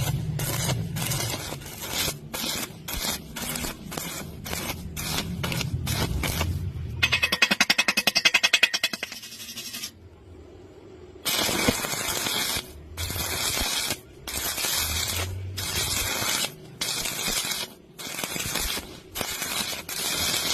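Stick welding arc crackling and hissing in short runs that stop and start every second or so. Near the middle it turns into a fast pulsing rattle, then breaks off for a moment.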